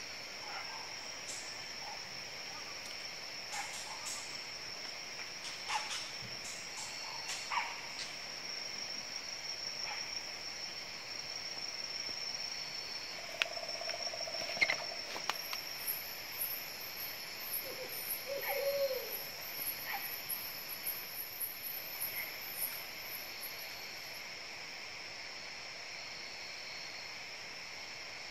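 Tropical forest ambience: insects keep up a steady high-pitched drone, and a second, higher pulsing insect trill joins about halfway through and stops a few seconds before the end. Scattered clicks and snaps and a couple of short low calls sound over it.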